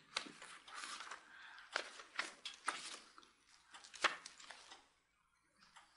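Pages of a large book being turned and handled: a series of short, dry paper rustles and flicks, dying away about five seconds in.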